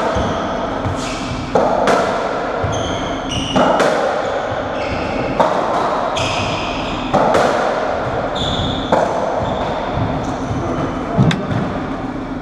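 Racketball rally on a squash court: the ball is struck and hits the walls about seven times, roughly one hit every two seconds, each hit echoing round the court. Between the hits come short, high squeaks of trainers on the wooden floor.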